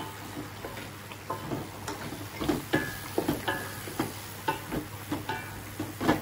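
A spatula stirring and scraping meat in a steel wok over a steady sizzle of frying. The wok knocks and rings briefly with each stroke, about twice a second.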